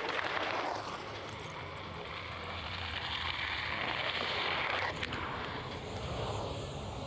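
Ski jumper's skis running down the in-run track at speed: a steady rushing hiss that swells as she gathers speed, with a single sharp click about five seconds in, around the take-off, then a fainter rush.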